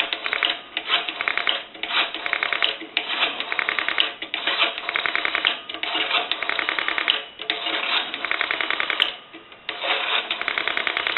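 Rotary dial of a Northern Electric 3-slot payphone pulsing out a number: bursts of rapid, evenly spaced clicks, one burst per digit, with short pauses as the dial is wound between digits.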